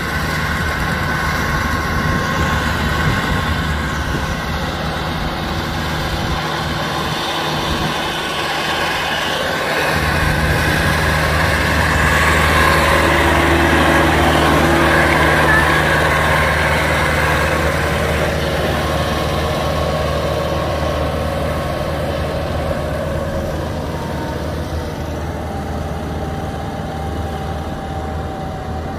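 Tracked rice combine harvester's engine running steadily as the machine drives along the road. It grows loudest about halfway through as it passes close by, then fades as it moves away.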